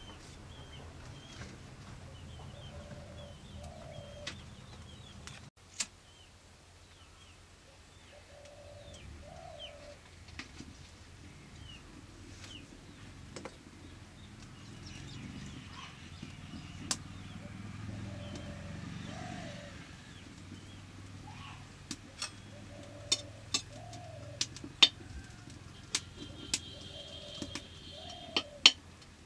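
A dove cooing over and over, a short rising call every few seconds, with small birds chirping. A run of sharp clicks and snaps in the last several seconds, as a twig fire catches in a clay stove.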